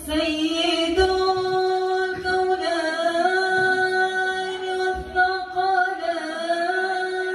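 Voices singing a madih, an Arabic religious praise song, holding long drawn-out notes on one melody line. A few low thumps sound under the singing, about a second in and again about five seconds in.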